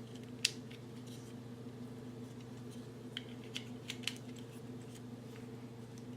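A few light, sharp clicks and taps, a loud one about half a second in and a quick cluster around three to four seconds in, over a steady low hum.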